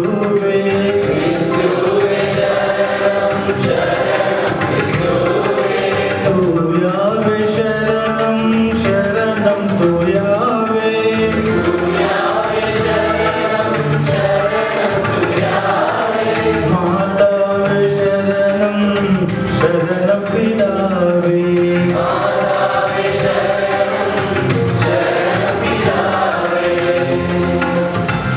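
Congregation singing a hymn together, with a man's voice leading through a microphone.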